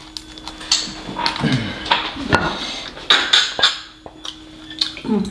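Sauce-coated snow crab legs being snapped and cracked apart by hand, a run of irregular sharp cracks and snaps of shell, followed by wet mouth sounds of licking and eating the crab meat.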